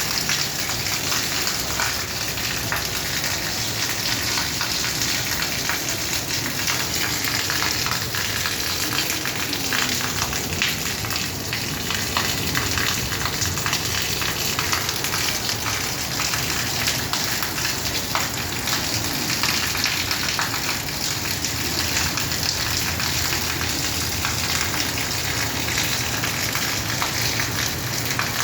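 Rain falling steadily: an even hiss of drops with countless small ticks of drops striking a surface.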